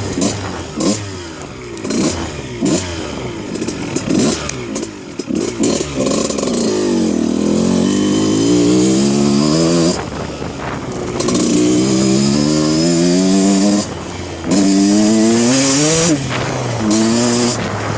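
1991 Kawasaki KX125's single-cylinder two-stroke engine being ridden: choppy, uneven running at low revs for the first several seconds, then revving hard, its pitch climbing steeply and dropping back about four times.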